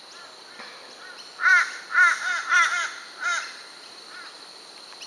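A crow cawing: a quick run of about six caws starting about a second and a half in, with fainter calls before and after.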